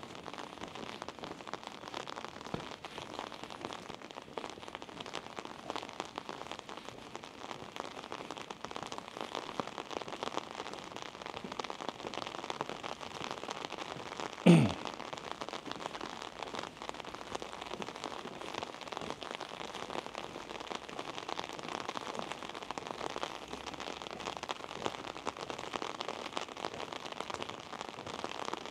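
Rain pattering steadily, an even crackle of many small drops. About halfway through there is one short, loud thump with a quickly falling tone.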